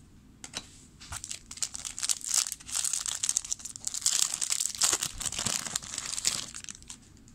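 Foil wrapper of a 2007 Upper Deck football card pack being torn open and peeled back by hand, crinkling and tearing. Scattered crackles about a second in build into steady crinkling that fades near the end.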